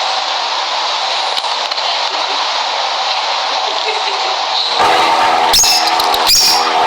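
Lovebirds chattering in an aviary as a dense, steady din. About five seconds in the sound changes abruptly to a louder passage of steady tones broken by sharp high chirps.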